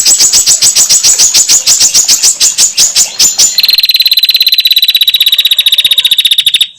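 Female prinia (prenjak) calls: a loud rattle of sharp repeated notes, about seven a second, changing about three and a half seconds in to a faster, lower trill that cuts off suddenly near the end.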